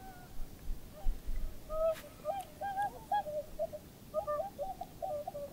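Whooper swans calling from across open water: short, wavering trumpeting calls, sparse at first and then coming in quick overlapping succession from about two seconds in. A single faint click about two seconds in.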